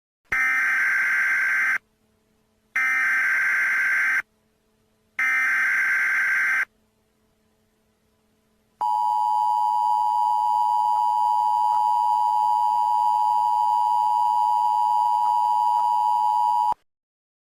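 Emergency Alert System tones: three short bursts of warbling SAME header data about a second apart, then the steady two-tone attention signal held for about eight seconds before cutting off suddenly, marking the start of a new alert.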